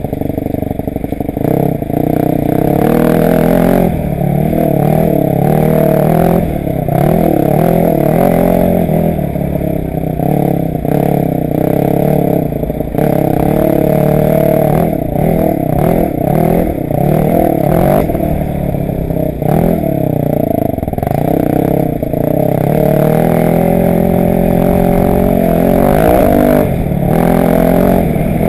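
Motocross bike engine heard from on board, revving up and falling back again and again as the rider accelerates, shifts and eases off around the dirt track.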